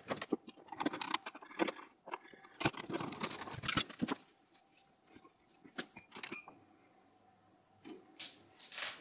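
Hand-handling clicks, clacks and light metal rattles from a CPU tower cooler being lifted off and the LGA1366 socket's retention lever and load plate being opened to take out the Xeon processor. The clicks come thick in the first few seconds, then scattered, with a couple more near the end.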